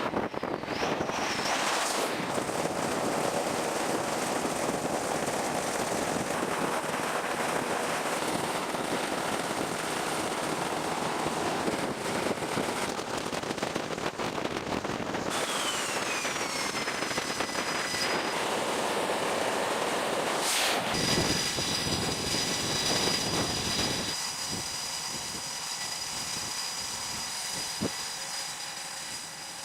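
A steady rushing noise with nothing pitched in it for about half the time. After an abrupt change, high whines fall in pitch, and then a steady high whine holds over a quieter rush, as from a jet engine.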